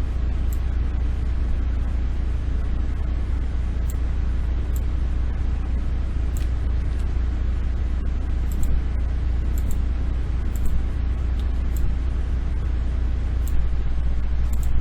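Steady low electrical hum and background noise from a desk recording setup, with faint, sharp high clicks every second or so, typical of a computer mouse being clicked.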